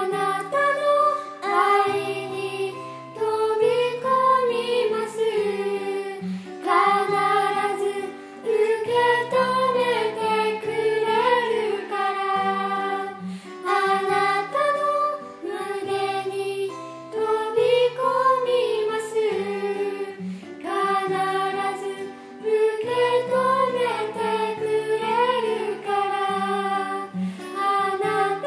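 Two girls and a woman singing a slow Japanese worship song together over an instrumental accompaniment with held bass notes.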